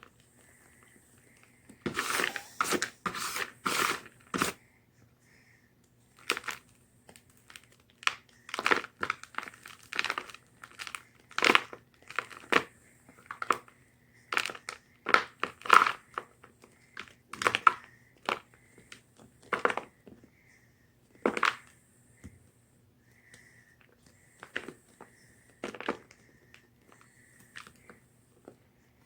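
Block of gym chalk being crunched and crumbled at close range: a dense run of crackly crunches about two seconds in, then single crunches and short clusters at irregular intervals with quiet gaps between them.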